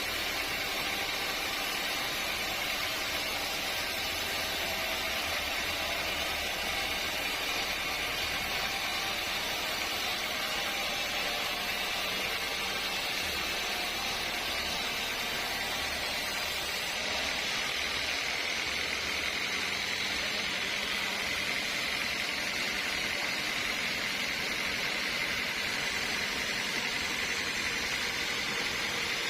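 Sawmill machinery running steadily: a continuous, even noise with a faint hum underneath, unchanging throughout.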